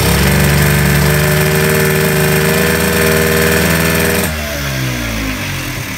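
Yamaha Pop Gal moped's two-stroke engine revved and held at high revs. About four seconds in the throttle is let go and the revs fall away to a steady idle, showing the engine now revs up cleanly and holds an idle.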